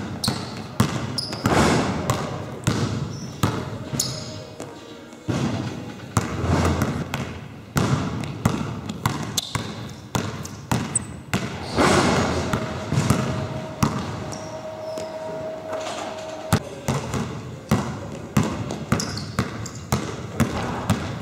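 Basketball dribbled on a wooden sports-hall court: quick, irregular bounces, each with a short echo off the hall.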